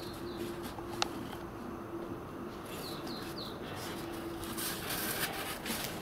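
Small birds giving short, high, falling chirps a few times over a faint steady low hum, with a single click about a second in and some rustling near the end.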